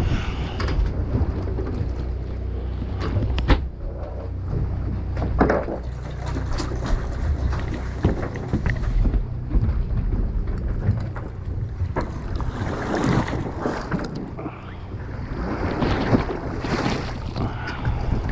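Steady low hum of a fishing boat's engine running, with wind buffeting the microphone in gusts and scattered knocks and clicks on deck.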